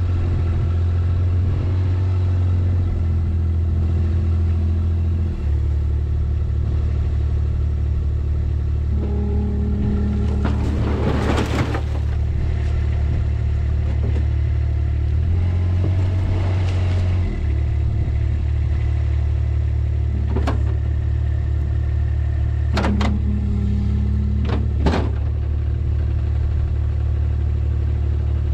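A vehicle's engine running steadily while its dump bed tips a load of mesquite brush and a stump onto a brush pile, the engine's pitch stepping up and down a few times. About ten seconds in there is a rush of noise as the brush slides off, a weaker one a few seconds later, and a few sharp clanks near the end.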